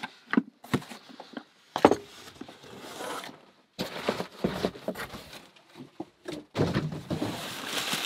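Knocks of cardboard and a heavy wooden box full of locks being handled and set down on a workbench, the loudest about two seconds in. Crumpled newspaper packing then rustles and crinkles as hands dig into it.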